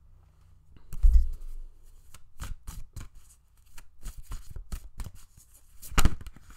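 A deck of oracle cards being shuffled and handled, with quick flicking clicks and rustles and two heavier thumps of the deck, about a second in and near the end.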